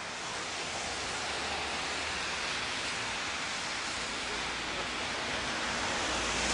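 Steady outdoor background noise: an even hiss with a low rumble underneath, growing slightly louder toward the end, with no voices.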